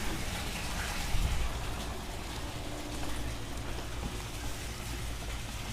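Aquarium sump with its water pump running: a steady splashing and trickling of water over a low steady hum.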